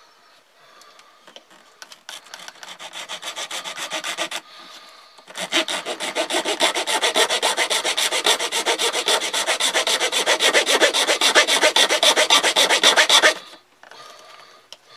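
Swiss Army knife's metal-cutting saw blade sawing back and forth through a hollow crossbow bolt in quick, even strokes. A short, lighter run of strokes is followed after a brief pause by a longer, louder run, as the blade works into the tube toward breaking through.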